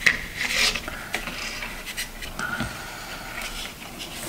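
Close, irregular scratching and rubbing as fingers twist a thin stranded wire onto another wire and brush the cardboard work surface, with a few small sharp clicks.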